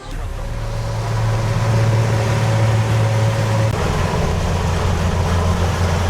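Boat engine running steadily under a hiss of wind and water, then throttling back to a lower pitch a little past halfway.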